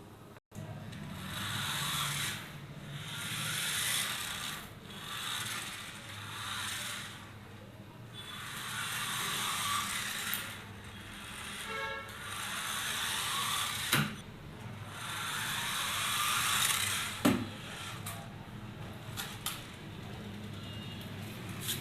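Toy remote-control car's small electric motor and gears whirring in repeated surges of one to two seconds, each swelling and dying away as the car is driven in short runs, with two sharp knocks in the second half.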